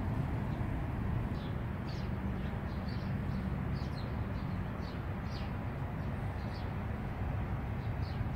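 Outdoor ambience: a steady low rumble with small birds chirping, about a dozen short high notes that each drop quickly in pitch.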